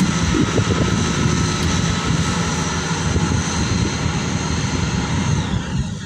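Maxxi Bimo Xtreme 2.0 L rice combine harvester running steadily: a constant engine drone with several high, steady whining tones above it.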